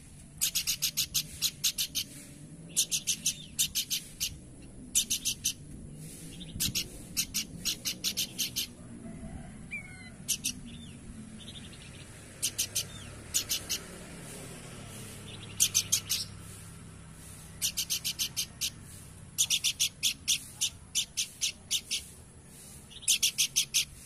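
Caged planduk semak babbler calling in repeated short bursts of rapid, very high-pitched notes. Each burst lasts up to about a second, with brief pauses between them.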